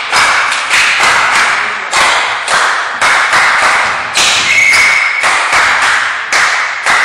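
Loud rhythmic percussive hits, about two a second, each sharp at the start and fading quickly, kept up at an even beat.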